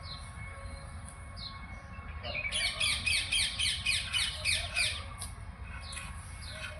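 A bird calling: a few single squawks, then from about two and a half seconds in a fast run of falling squawks, about five a second, lasting some two and a half seconds.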